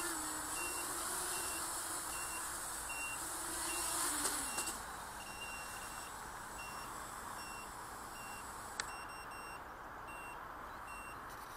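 Short electronic beeps repeating about twice a second, over a hum and hiss from a racing quadcopter's motors idling on the ground; the motors wind down and stop about four and a half seconds in, while the beeping carries on. A single sharp click comes about nine seconds in.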